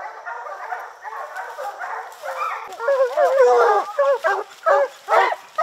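A pack of bear hounds baying at a treed black bear, many barks and bawls overlapping, growing louder and closer from about three seconds in.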